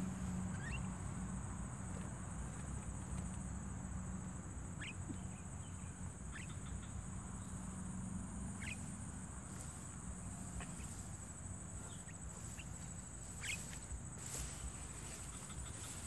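Insects droning steadily at a high pitch, with short chirps from Javan mynas every second or two. A low hum is heard in the first half and fades out.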